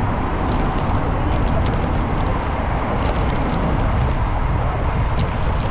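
Riding a bicycle through city traffic, with wind buffeting the bike-mounted camera's microphone as a steady low rumble. Light ticks and rattles come and go through it.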